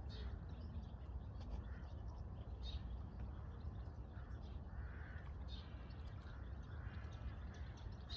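Birds calling in short, separate calls every second or two, some high and some lower, over a steady low rumble.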